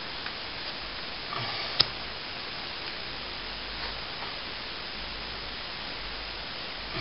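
Steady hiss with a few faint scrapes and one sharp tap just under two seconds in, as plaster filler is smoothed and levelled along a ceiling cornice.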